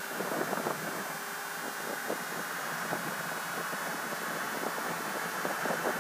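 Motorcycle riding at road speed, heard mostly as wind rushing over the microphone, with irregular gusting flutters.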